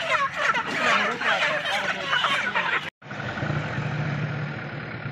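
Broiler chickens squawking and clucking as they are caught and handled, cut off suddenly about three seconds in. Then a vehicle engine runs with a steady low hum.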